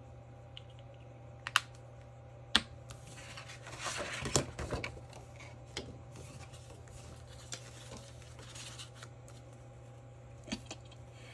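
Paper crafting at a desk: a few sharp clicks of tools being set down or pressed, and a scratchy rustle of paper being cut and handled a few seconds in, over a faint steady hum.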